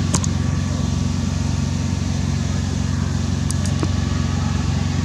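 A steady low mechanical hum, like a running motor, with a few brief high chirps about a quarter second in and again about three and a half seconds in.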